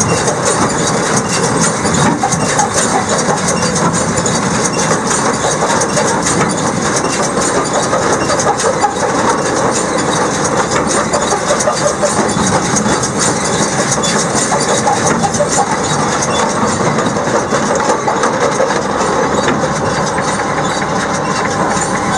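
Tractor engine running steadily while powering a Hesston 4750 large square baler, whose running gear clatters and rattles throughout.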